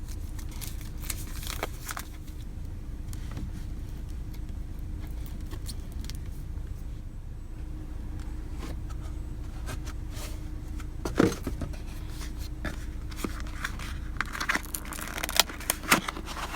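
A Nest Learning Thermostat is unboxed: the cardboard box and packaging are handled, with scattered clicks, rustles and tearing. There is one louder knock about two-thirds of the way in, and the handling grows busier near the end. A steady low hum runs underneath.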